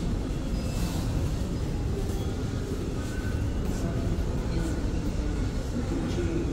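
Steady low rumble of room noise, with faint voices in the background.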